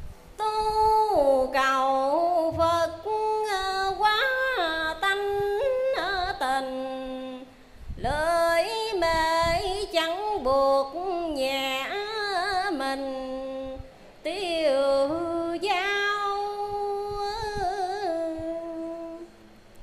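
A woman chants Hoa Hao Buddhist verses in Vietnamese into a handheld microphone, in a slow, melodic style. Her notes are drawn out and waver in pitch. She sings in three long phrases, with short breaks for breath about 8 and 14 seconds in.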